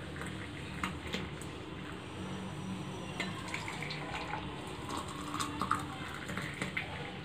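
Thickened almond milk poured from a vessel into glass tumblers, a steady pouring splash as the glasses fill. A few light clicks sound about a second in and again later.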